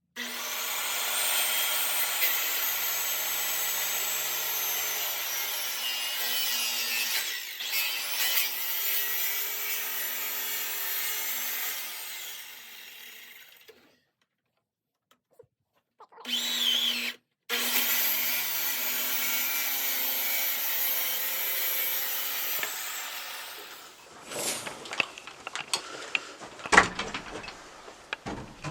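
Power saw cutting out the corner of a wooden board, running steadily through two long cuts with a short burst between them. A few knocks and clatter of the wood being handled come near the end.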